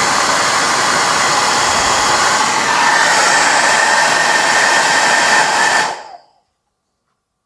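Handheld hair dryer blowing hard on its high hot-air setting, a loud steady rush of air. About three seconds in a steady whine joins it and it gets slightly louder. It stops abruptly about six seconds in.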